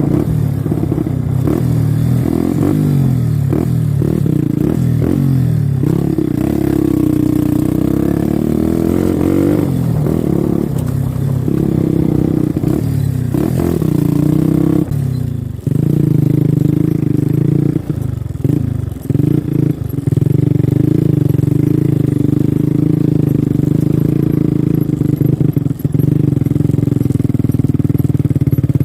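Motorcycle engine running while being ridden, its pitch rising and falling with the throttle in the first half. The sound drops off briefly about halfway and dips a few more times a little later, then runs steadily.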